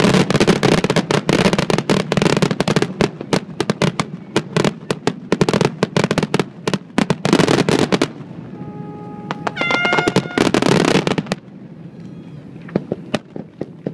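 Fireworks display: a dense, rapid barrage of bangs and crackles for about eight seconds. After that, a few brief pitched tones sound over thinner crackling, and then scattered single pops near the end.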